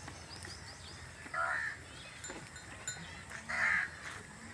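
Goats bleating: two short calls, each about half a second, the second a little louder.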